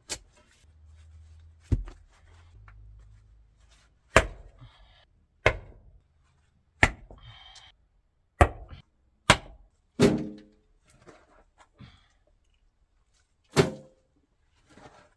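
Hammer blows on stone: about nine sharp strikes at uneven intervals, a few with a short ring, as stones are knocked into place in a stone path.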